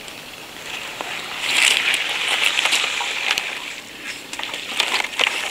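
Water splashing and sloshing, loudest for a couple of seconds starting about a second and a half in, with scattered small clicks.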